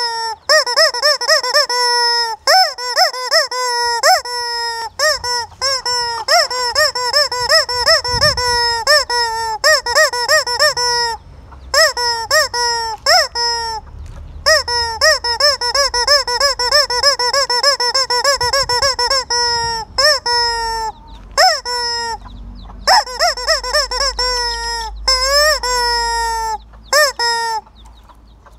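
Rubber squeeze-toy chicken squeezed over and over, giving fast runs of shrill, arching squeaks, about three or four a second, with a few brief pauses.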